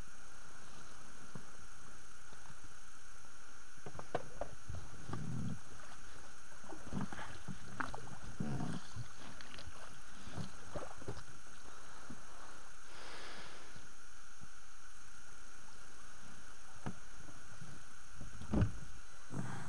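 Irregular knocks, bumps and scraping from an inflatable boat and its oars being handled and shoved through marsh vegetation into a water channel, with one louder thump near the end.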